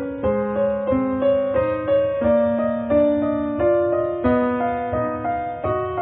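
Background piano music: a slow melody of held notes over a soft accompaniment, a new note about every half second.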